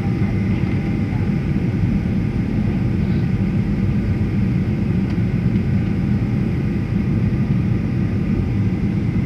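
Steady jet engine and airflow noise inside the cabin of a Boeing 737 airliner descending to land: a deep, even rumble with faint steady whine tones above it.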